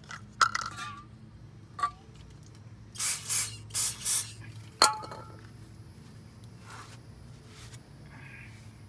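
Aerosol brake cleaner sprayed from a can onto a brake rotor in four short hisses, about three seconds in, to wash off paint overspray. A few sharp clicks and clinks come before and after, the last one ringing briefly.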